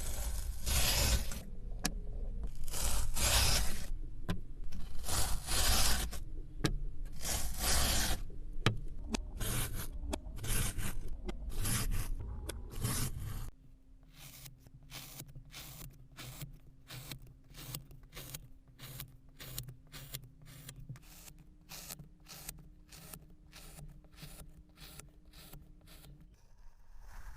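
Knife cutting and scraping through kinetic sand: long, loud scraping strokes about a second each, then from about halfway quicker, quieter slicing cuts, about two a second.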